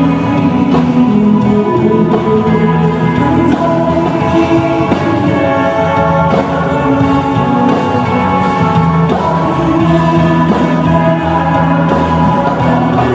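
A live pop-rock band playing, with a male lead singer, guitar and drums.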